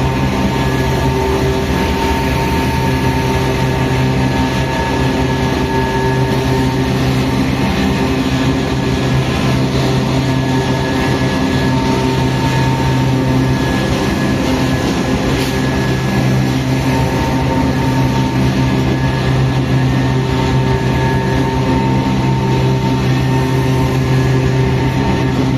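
GE C44-9WM (Dash-9) diesel-electric locomotive running at a steady pace: a loud, even hum with several held tones that neither rise nor fall.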